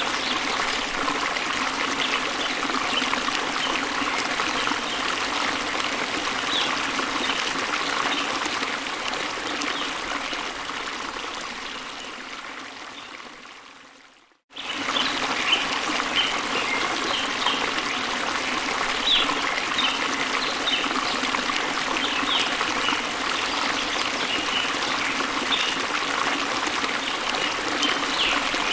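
Waterfall water running steadily, with short high bird chirps over it. About halfway through, the sound fades away to silence, then comes back suddenly.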